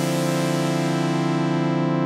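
Background music: one chord held steady.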